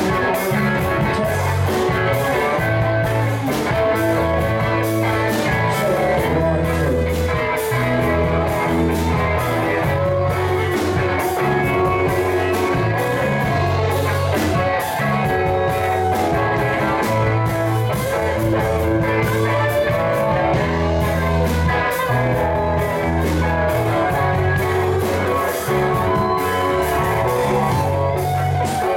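Live rock band playing an instrumental passage: electric guitars and bass guitar over a drum kit.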